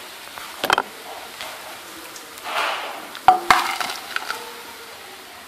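Wire skimmer scraping and clinking against a kadai while scooping fried bitter gourd slices out of hot ghee, with a faint sizzle of the oil underneath. Sharp metal knocks come a little under a second in and twice about three and a half seconds in, with a scraping rustle between them.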